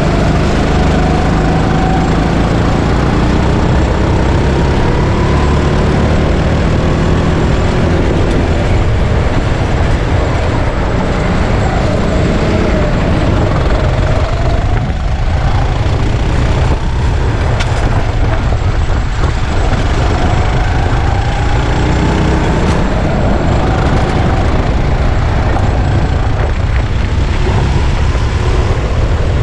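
Go-kart engine running at speed, its revs climbing in long rising pulls, falling back and climbing again several times, over a steady low rumble.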